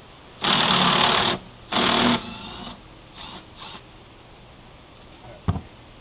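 Cordless drill spinning the bolt out of a snowblower wheel hub in two loud runs of about a second and half a second, the second winding down with a falling whine, then two short blips. A single sharp thump about five and a half seconds in.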